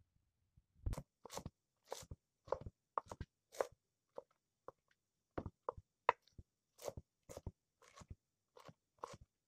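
Kitchen knife chopping a pile of glass noodles on a wooden cutting board, the blade knocking on the board. About twenty irregular strokes at roughly two a second, starting about a second in.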